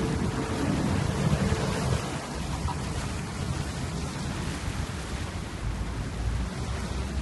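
Steady rushing noise of wind and fast-flowing water, with wind buffeting the microphone.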